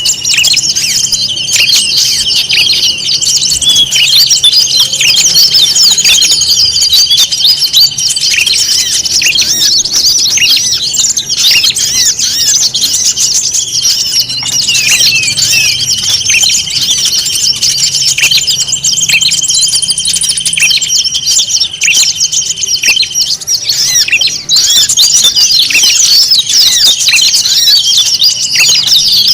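Dense mixed chorus of many small songbirds chirping and twittering at once, with a steady high trill held for several seconds at a time that breaks off twice. It is a bird-lure (pikat) recording of 'noisy birds', played to attract wild birds.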